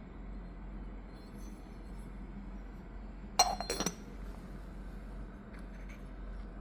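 Yixing clay teapot clinking: one sharp, ringing clink about halfway through, followed by a few quick lighter rattles within half a second, as of the lid settling on the pot.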